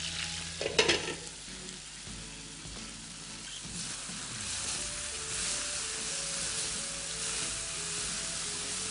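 Stuffed bitter gourds (karela) sizzling as they fry in oil in a frying pan, with a brief clatter of a utensil against the pan about a second in. The sizzle grows louder and brighter from about four seconds in.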